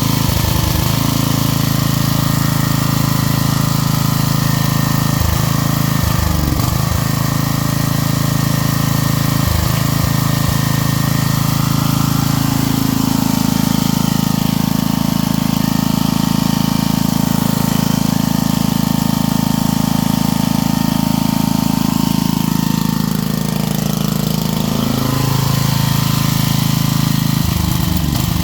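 Coleman Powermate 4000 W portable generator's 8-horsepower engine running steadily, its engine note dipping briefly and recovering several times.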